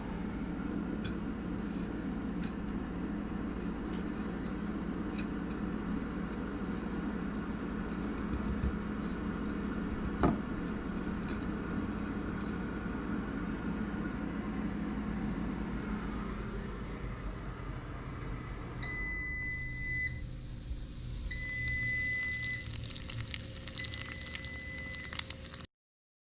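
Crumb-crusted fish fillets sizzling and crackling in duck fat in a cast iron pan, over a steady low hum. About three-quarters of the way through, a kitchen appliance beeps three times, each beep long and even.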